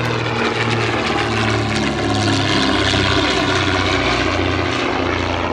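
Twin piston engines of a de Havilland DH88 Comet racer running at display power in a fly-past, a steady propeller drone that pulses as the two engines beat against each other. It grows loudest about halfway through and then eases a little in pitch as the aircraft passes.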